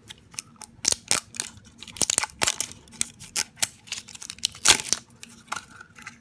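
Blind-bag toy packet being torn open and crinkled by hand: a busy, irregular run of sharp crinkles, rustles and tearing sounds.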